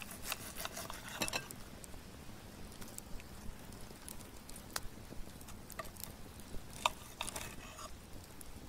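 Steak knife and fork cutting through a thick reverse-seared steak: soft squelches of the juicy meat with light clicks and scrapes of metal, in two short clusters, one at the start and one about seven seconds in, with a few single ticks between.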